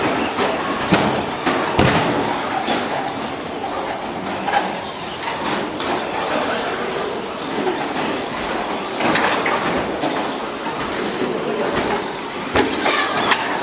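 Radio-controlled 1:10 short course trucks racing around a track: a dense, continuous running noise of motors and tyres, with scattered sharp knocks as the trucks hit the track or each other.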